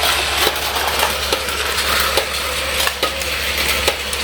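Battery-powered Plarail toy train running on plastic track: a steady small-motor and gear rattle with regular sharp clicks, about two to three a second.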